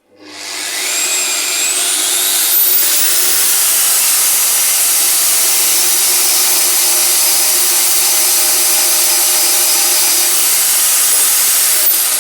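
125 mm angle grinder driving a 610×50 mm belt-grinder attachment: it spins up with a rising whine over the first couple of seconds, runs steadily, and starts to wind down at the very end.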